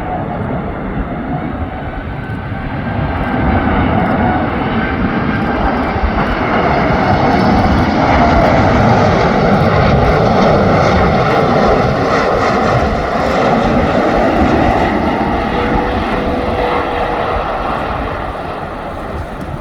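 Boeing 747-8 freighter's four GEnx jet engines on landing approach: a loud rumble with a faint whine that builds to a peak about halfway through as the jet passes, then fades.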